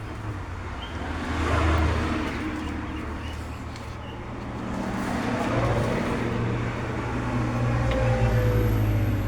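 Road traffic going past: one vehicle swells up and fades about two seconds in, and a longer swell of passing traffic builds from about five seconds on.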